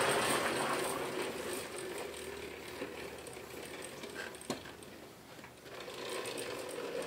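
Baja Warrior mini bike's 196cc single-cylinder Honda-clone engine running with its governor bypassed, fading as the bike rides away and growing louder again near the end as it turns back.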